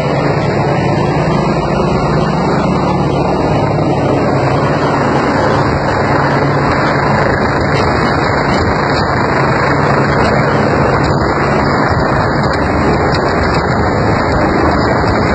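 Rescue helicopter hovering low overhead: loud, steady rotor and engine noise.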